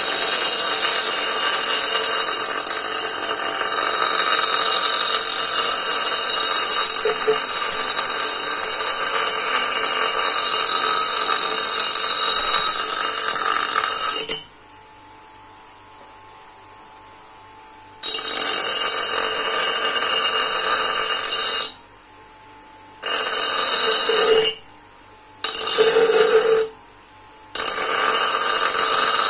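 Bench grinder wheel grinding the rusted steel head of an old chipping hammer: a loud, harsh metallic grinding with a high ringing edge. It stops abruptly for a few seconds around the middle and three more brief times near the end, going much quieter each time before the grinding starts again.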